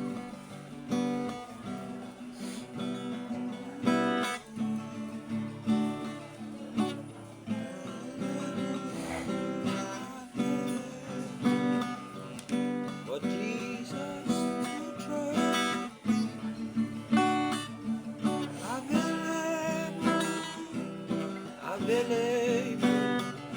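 Acoustic guitar strummed and picked, playing the instrumental introduction to a gospel worship song.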